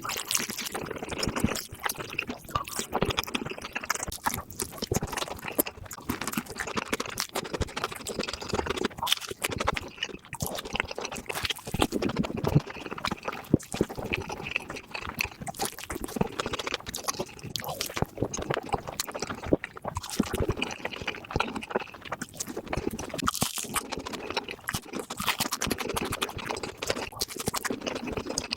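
Close-miked eating of a burger: chewing and biting with wet mouth noises, an irregular run of small clicks and squelches throughout.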